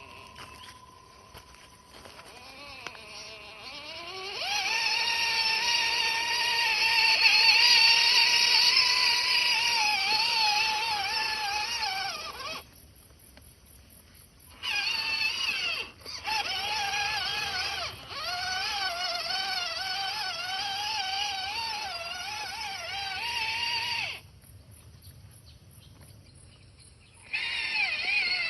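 Electric drive motor and gearbox of an MN99S 1/12-scale RC crawler whining as it drives, the pitch wavering with the throttle. It starts about four seconds in, stops for a couple of seconds midway, and stops again near the end before starting once more.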